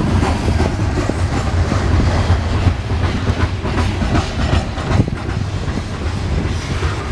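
Norfolk Southern coal train's hopper cars rolling past, a steady heavy rumble with wheels clacking over rail joints.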